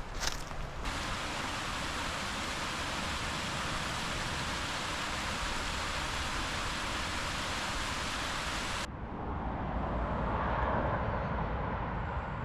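Steady, even rush of water from a small waterfall cascade, starting and cutting off abruptly. It gives way near the end to a duller, lower rushing noise that swells and fades.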